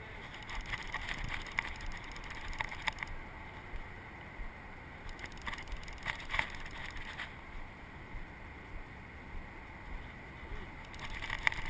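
Steady wind and river background, with three short runs of light clicking from a conventional fishing reel being handled and cranked: the first in the first few seconds, the second about halfway through, the third near the end.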